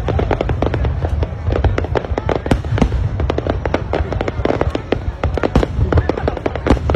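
Fireworks display: many aerial shells bursting in quick succession, a dense, unbroken crackle of sharp bangs over a steady low rumble.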